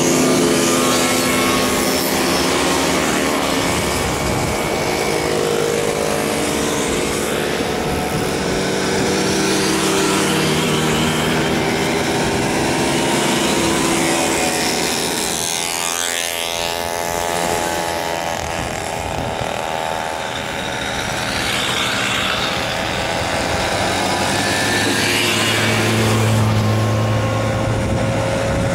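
A procession of old two-stroke mopeds and small motorcycles, Jawa, Pionýr and Simson types, riding past one after another, many small engines buzzing at once. Their pitches bend up and down as the bikes pass close, most clearly about halfway through.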